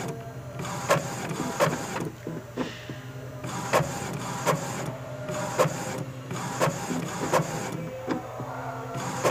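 Epson L3119 ink-tank inkjet printer running a colour copy: its mechanism whirs steadily with regular sharp clicks, a little under two a second, as the page is fed and printed.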